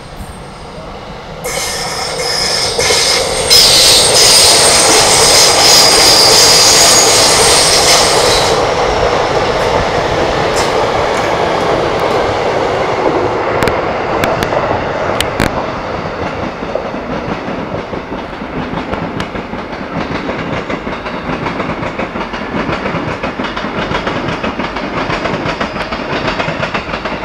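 Keihin-Tohoku Line E233-1000 series electric train arriving, its wheels squealing high and shrill against the rails for several seconds near the start, the loudest part. The squeal then gives way to the steady rumble of passing cars with the click of rail joints, as a second Keihin-Tohoku train runs by.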